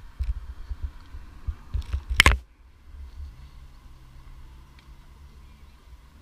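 Wind buffeting on an action camera's microphone, heard as irregular low rumbling thumps, with one sharp knock a little over two seconds in. A faint steady low hum comes in about halfway through.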